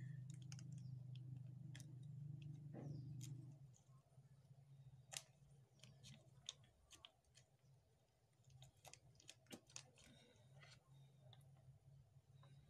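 Faint, scattered crinkles and clicks of a small foil sachet being torn open and handled. A low hum runs underneath and stops about four seconds in.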